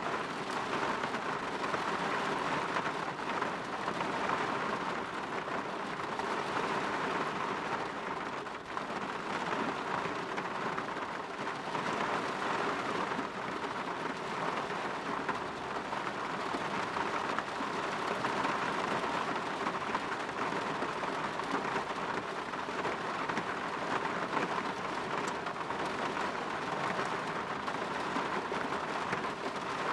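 Steady rain falling against a window: an even, unbroken hiss with no letup.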